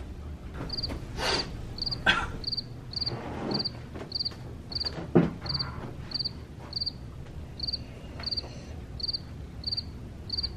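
Cricket chirping sound effect: short high chirps, evenly spaced at about two a second, the comic cue for an awkward silence. A single sharp knock sounds about five seconds in.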